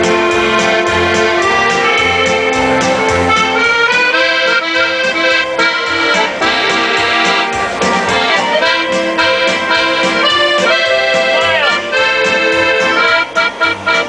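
Diatonic button accordions (button boxes) playing a lively tune: right-hand melody and chords over a pulsing bass from the bass buttons. The music dips briefly a few times near the end.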